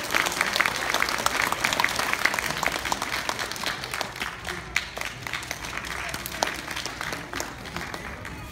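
Audience applauding: dense clapping that thins out and fades toward the end.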